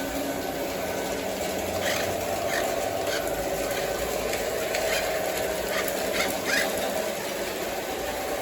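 O gauge model train running with a steady motor hum, with a string of about eight short high chirps or squeaks from about two seconds in until near the end.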